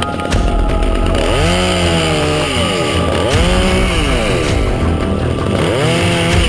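Chainsaw engine revving up and dropping back again, about three times, with background music underneath.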